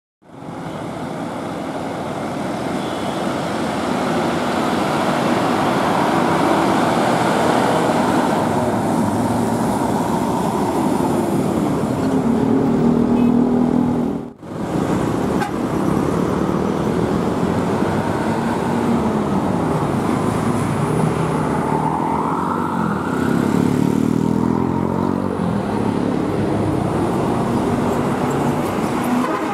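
Busy road traffic at a junction: bus, car and motorcycle engines running and pulling away, with a vehicle horn sounding. The engine pitch rises and falls as vehicles accelerate, and the sound drops out sharply for a moment about halfway through.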